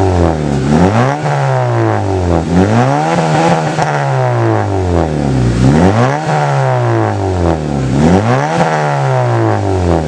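Honda Civic FD engine heard through a dual-exit HKS burnt-tip axle-back muffler, revved up and let fall back over and over, its pitch rising and dropping about half a dozen times.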